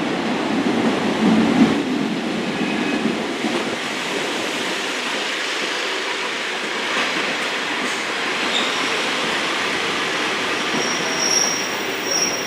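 Class 143 Pacer diesel multiple unit running into a station platform, with a steady rumble of engine and wheels on the rails. A few short, high-pitched squeals come near the end.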